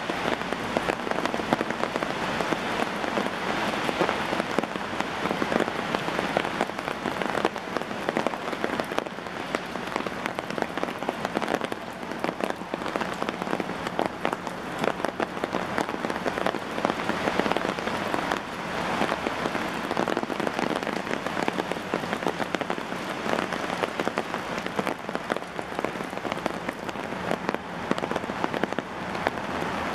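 Heavy rain falling steadily, dense with many sharp, close drop hits. About a second before the end the sound turns to a smoother, steadier hiss.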